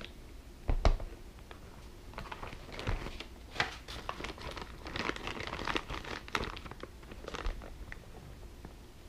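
Clear plastic packaging bag crinkling and rustling in irregular crackles as parts are pulled out of it, with a dull knock less than a second in.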